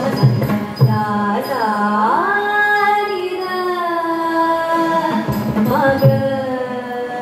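Carnatic music for Bharatanatyam dance: a voice sings long held notes with sliding ornaments over a steady drone, with drum strokes in the first second and again about six seconds in.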